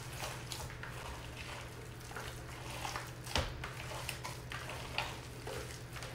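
Hands squishing and kneading a raw ground-beef meatloaf mixture in a bowl: irregular wet squelches and crackles, with a couple of sharper clicks. A steady low hum runs underneath.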